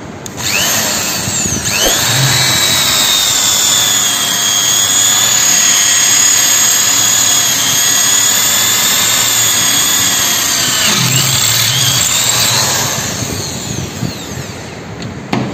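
Buildskill BBED1100 electric pistol-grip drill boring dry through a 6 mm mild steel plate, with no coolant. The motor spins up to a steady high whine that holds for about ten seconds, then winds down near the end.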